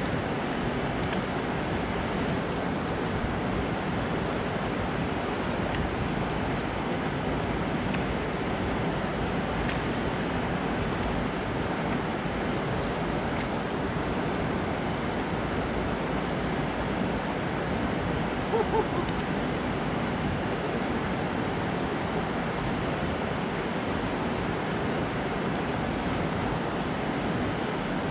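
Water pouring down a concrete dam spillway and churning in the pool below: a steady rushing noise.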